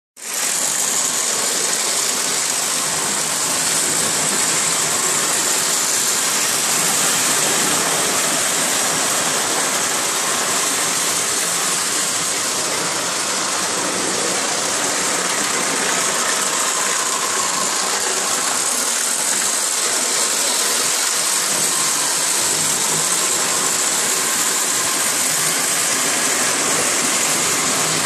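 Lionel model trains running on the layout's track, a steady, unbroken whirring rumble of motors and wheels on rail.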